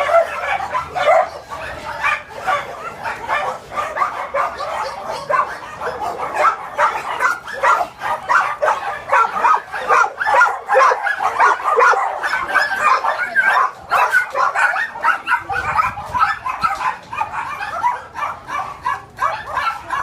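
Many shelter dogs in their kennels barking and yipping at once, a dense, unbroken chorus of overlapping barks.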